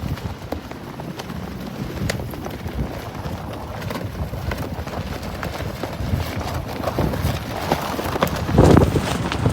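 Strong wind buffeting the microphone as a steady low rumble, with scattered sharp flapping clicks. A louder gust comes near the end.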